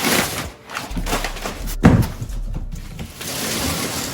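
Packaging and parts being handled during an unboxing: rustling with a sharp thump about two seconds in.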